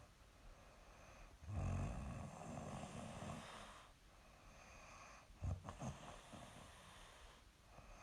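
A young woman snoring in her sleep: a loud, rattling snore about a second and a half in that trails off into a breath, then a shorter, choppy snore about five and a half seconds in.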